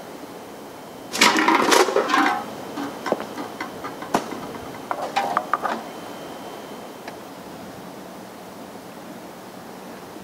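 An empty aluminium beer can clattering and bouncing on concrete steps about a second in, followed by lighter knocks and clinks of cans, with a sharp click a little after four seconds.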